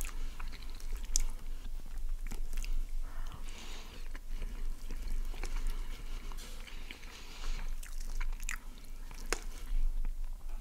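Close-miked chewing of chicken poutine: soft, wet mouth sounds and swallowing, with sharp clicks now and then.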